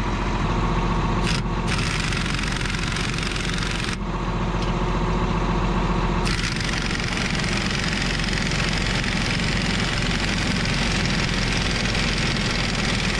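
John Deere 4640 tractor's six-cylinder diesel engine idling steadily, with an even hiss over it that drops out briefly about a second in and again from about four to six seconds in.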